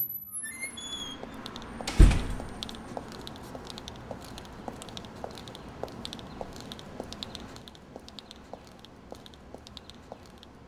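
Footsteps walking on a concrete sidewalk at a steady pace, about two steps a second, growing fainter near the end. A single heavy thud about two seconds in is the loudest sound, and a few short high falling tones sound at the very start.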